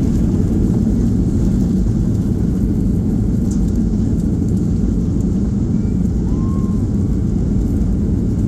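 Steady low rumble inside the cabin of a Boeing 737-800 on the ground after landing, from its CFM56 engines at low power and the wheels rolling.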